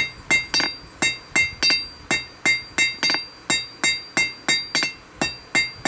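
Blacksmith's hand hammer striking hot steel on an anvil in a steady rhythm, about three to four blows a second, each blow ringing bright and metallic. The smith is drawing a taper on a bar down to nail size.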